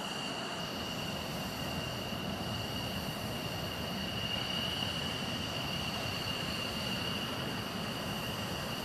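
F-16 fighter jet engine running at low power while taxiing: a steady high-pitched whine over an even rushing noise.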